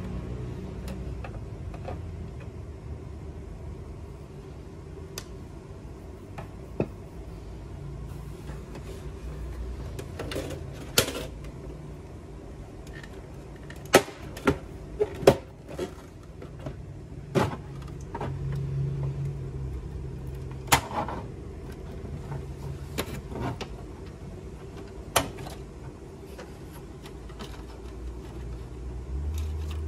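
Scattered sharp plastic clicks and knocks from a Canon inkjet printer's casing being taken apart by hand, as screws are undone and the scanner unit is lifted off. The loudest clicks come in a quick cluster about halfway through.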